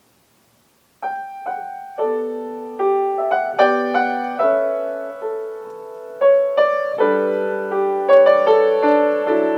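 Solo piano playing a slow, gentle prelude. It starts about a second in with single notes, then moves into chords that are struck and left to ring.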